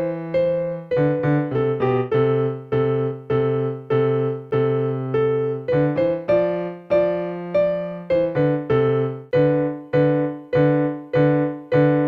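Electronic keyboard played with both hands: evenly paced struck notes, each fading after the strike, with bass and middle notes sounding together, as in a practice exercise where each hand plays a different note value.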